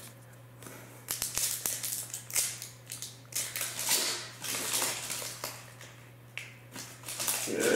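Hockey card pack wrapper being torn open and crinkled by hand: a run of crackling rustles with short pauses.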